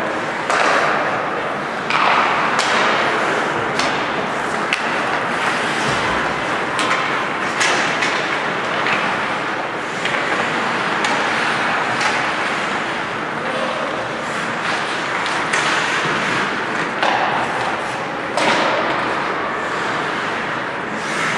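Ice hockey play: skates scraping on the ice and frequent sharp clacks and thuds of sticks, puck and boards, over steady arena noise.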